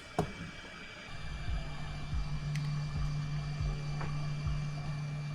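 Hot air rework station blowing, its steady motor hum coming on about a second in, while reflowing a replacement GDDR6 memory chip onto the graphics card. A click just after the start and a few soft low thumps.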